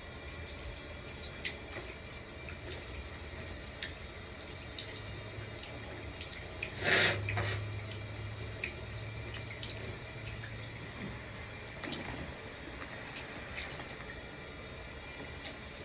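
Shower water running steadily, with small drips and splashes, and one short sharp burst about seven seconds in that stands out above it.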